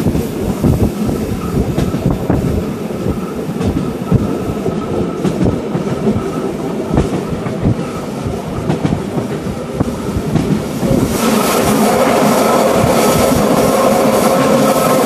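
Rhaetian Railway passenger train running, heard from inside a carriage: a rumble with wheels clicking over the rail joints. About eleven seconds in the sound suddenly turns louder and more even as the train enters a tunnel.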